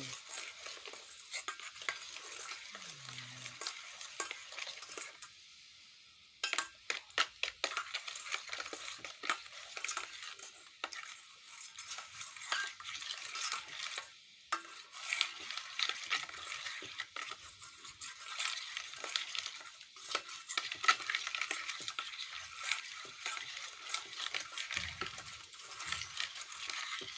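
Something sizzling and crackling in a hot pan as it is stirred, with a dense run of fine pops and small utensil clicks and a short lull about five seconds in.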